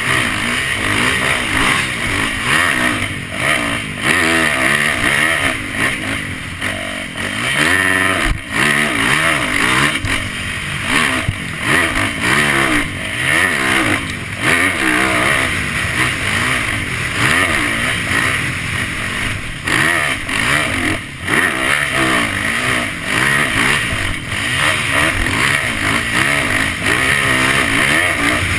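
Yamaha YZ450F four-stroke single-cylinder motocross engine, heard from on board while riding. The engine revs up and down over and over, its pitch rising and falling every second or two.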